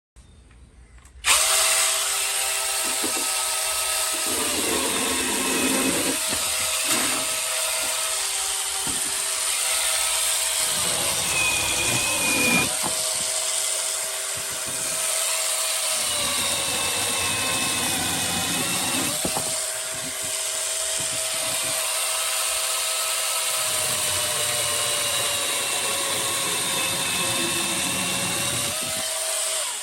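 A cordless brushless mini chainsaw runs with a steady electric whine, starting about a second in. The pitch dips several times as it bogs under load while cutting wood, then recovers. It stops at the end.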